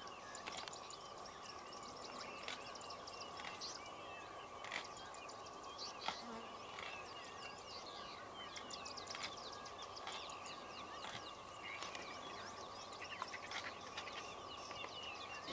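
Faint bird chirping: many short calls and twitters throughout, over a steady faint hum, with scattered sharp clicks.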